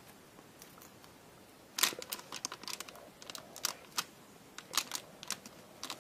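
Paper rustling and crinkling with sharp little clicks and taps as small paper strips are handled and pressed onto a paper packaging card, starting about two seconds in.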